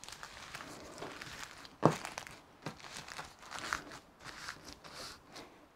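Clear plastic film crinkling and crackling as a fermented pork log is rolled tight in it by gloved hands, in scattered small rustles with one sharper knock about two seconds in.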